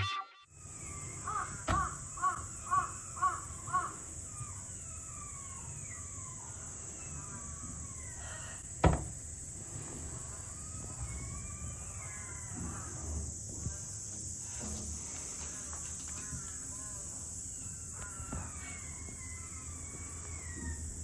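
Asian small-clawed otters calling with high squeaky chirps: a run of about six evenly spaced calls in the first few seconds, then many scattered short chirps. A single sharp knock sounds near the middle, over a steady high hiss.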